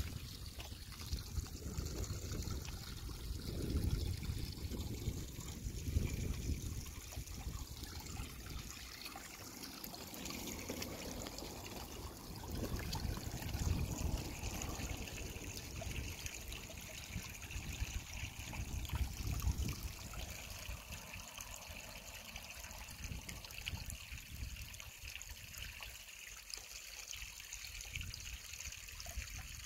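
A thin trickle of water running over rocks between shallow pools in a river shrunk by drought. Low buffeting of wind on the microphone comes and goes, then dies away about two-thirds of the way through.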